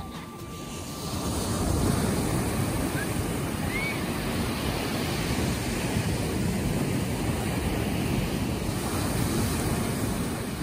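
Ocean surf: waves breaking and washing up the sand in a steady rushing noise that swells about a second and a half in.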